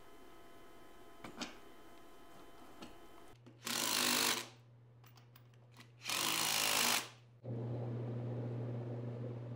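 Cordless power driver run twice in short bursts, each just under a second, driving in the bolts of a front locking hub on a steel wheel hub. Light metal clicks of the parts being fitted come before it, and a steady low hum runs under the second half.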